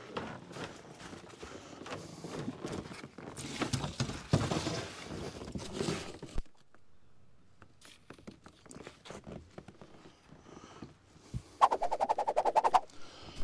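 Fabric rustling and scuffing handling noise with footsteps on a snowy wooden deck for about six seconds, then quieter scattered clicks and knocks. Near the end comes a quick zip of about a second, a fast even run of clicks and the loudest sound here.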